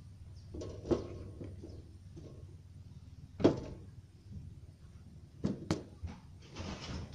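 Kitchenware being handled: a few sharp knocks and clatters, the loudest about three and a half seconds in and two close together a little later, with a short rushing noise near the end.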